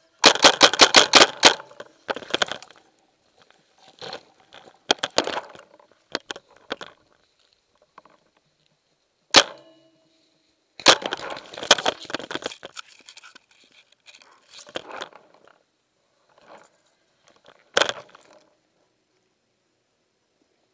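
Paintball marker firing: a quick volley of about eight shots in a little over a second at the start, then scattered shorter volleys and single sharp shots, one a little past the middle and a last one near the end.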